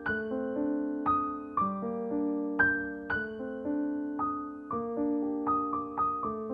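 Background piano music: a gentle melody of single notes and chords, struck about twice a second and left to ring out.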